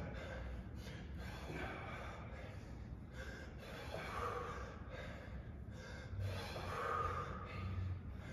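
Heavy breathing from people working hard through weighted thrusters: short, sharp breaths about once a second.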